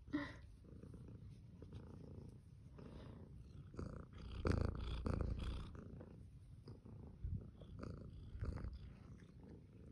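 Domestic cat purring steadily close to the microphone, a low continuous rumble that grows louder for a second or so about halfway through.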